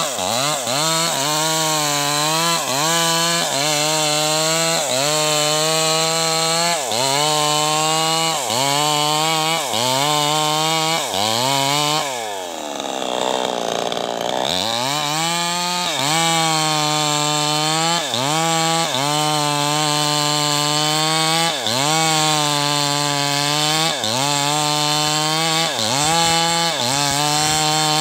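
New West 588 two-stroke chainsaw cutting into a teak trunk at high revs, its engine note dipping and recovering about once a second as the chain bites into the wood. About halfway through, the engine slows almost to idle and then revs back up.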